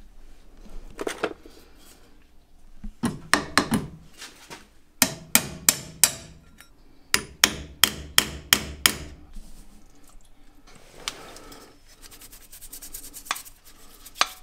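Sharp metal-on-metal strikes of a hammer driving a screwdriver against rusted metal on an old drum brake shoe held in a vise. A few blows come about three seconds in, then a run of about nine strikes, roughly two a second, each ringing briefly.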